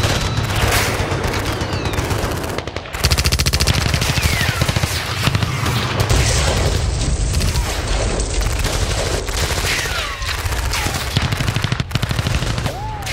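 Paintball markers firing in rapid volleys, shot after shot, with a very fast, even string of shots from about three seconds in.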